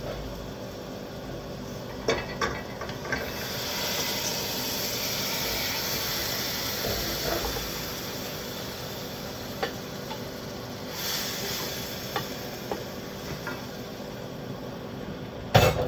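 Spoon and bowl clinking and scraping against a cooking pot as chili ingredients are tipped into it, with a hiss like sizzling from about three seconds in and again later, and a loud knock near the end.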